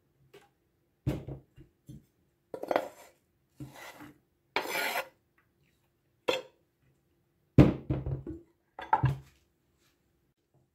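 Chopped peppers being scraped off a wooden cutting board into a glass baking dish, in a string of short scrapes and knocks of wood and glass. The loudest knock comes a little past halfway, and the board and knife are set down near the end.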